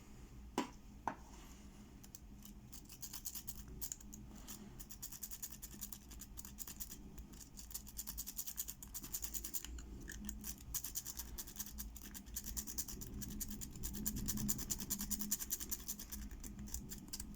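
Worm rake scraping back and forth across the pins in the keyway of a 50mm Hero padlock: a fast, dense scratchy clicking of metal on metal. Two single clicks come in the first second, and the rapid raking starts about two and a half seconds in.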